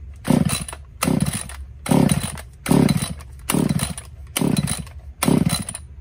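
Echo CS-345 two-stroke chainsaw being pull-started with the choke on: about seven quick yanks of the recoil starter rope, each a short rasping crank of the engine, that never settle into running. The saw is not catching.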